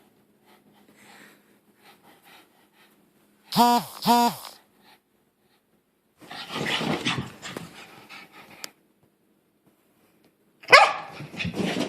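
Boston terrier making strange vocal noises: two short, sharp barks about three and a half seconds in, a longer rough grumbling sound a couple of seconds later, and another loud cry with a falling pitch near the end. The owner puts the noises down to the dog's dislike of a new sweater.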